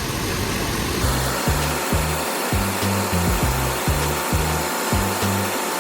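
Background music with a low bass line stepping from note to note and a regular beat, starting about a second in.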